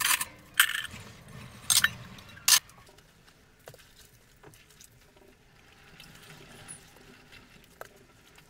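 A few brief sharp clatters in the first three seconds, the last one the sharpest. Then a quiet stretch with faint light knocks and fabric rustle as a steam iron is moved over a shirt.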